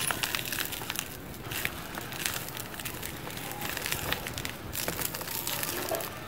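Dry cement lumps crumbled between bare hands: a dense run of gritty crunching and crackling as the pieces break apart and grit and dust pour into a plastic tub, with a short lull about a second in.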